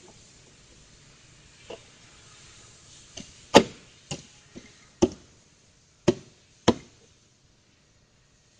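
A series of about eight sharp knocks at irregular intervals, the loudest about three and a half seconds in, then quiet near the end.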